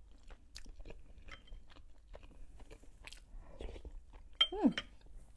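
Close-miked chewing of fried khinkali, with soft wet mouth clicks. Near the end a metal spoon clinks against the ceramic soup bowl, and there is a short loud slurp of mushroom cream soup that falls in pitch.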